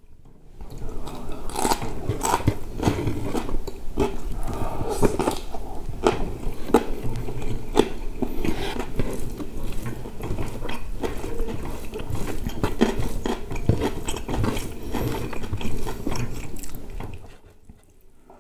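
Close-miked eating by hand: a dense, irregular run of wet chewing and mouth smacks, with fingers working rice on a metal tray. It stops about a second before the end.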